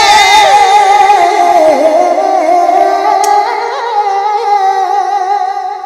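Punjabi kavishri singing: the voices draw out a long note at the end of a line, sliding at first and then held steady, fading away near the end.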